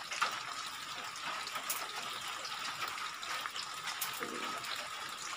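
Steady rushing background noise with a faint high whine running through it, and a few light clicks and taps as a cardboard box is handled.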